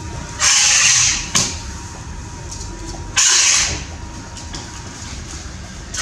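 Nikon Coolpix P900's lens zoom motor whirring in short bursts, heard through the camera's own microphone. There are two whirs of about half a second each, the first followed by a brief blip, and a third starts right at the end, over a steady low background rumble.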